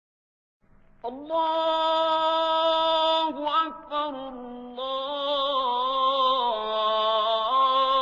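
A solo voice chanting in long, held notes that waver and step slowly between pitches, starting about a second in.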